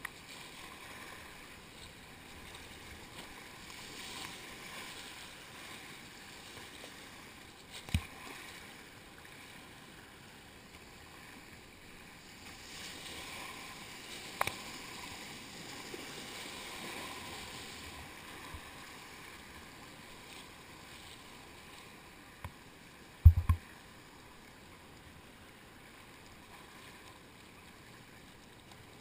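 Whitewater rushing and splashing around a kayak as it runs a rapid, a steady hiss of moving water. A few sharp knocks break through it, the loudest a quick double knock about three quarters of the way through.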